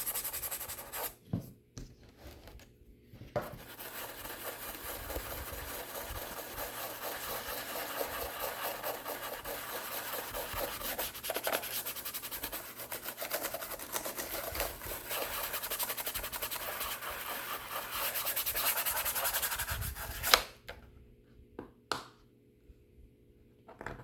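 Steady back-and-forth scrubbing of an HP 255 G4 laptop with isopropyl alcohol, rubbing off grime. It pauses briefly about a second in and stops about 20 seconds in, followed by a sharp knock and a fainter click a couple of seconds later.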